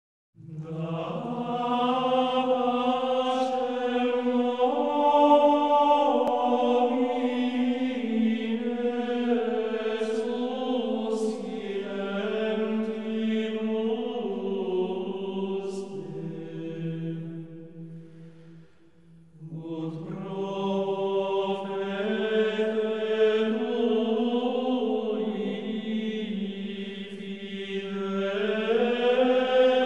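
Background music of slow, sustained vocal chanting, long notes held and stepping between pitches. It dips almost to silence about nineteen seconds in, then resumes.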